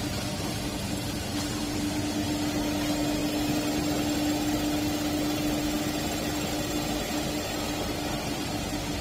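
Shrink sleeve label seaming machine running at a steady speed: a constant mechanical hum with a steady low tone running through it.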